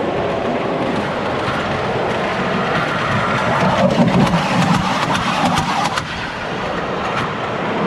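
Small ride-on Thomas the Tank Engine train rolling over its steel track and passing right over the microphone: a rumble swells about three seconds in, with a quick run of clicks and rattles from the wheels on the rails, and fades after about six seconds over a steady background hubbub.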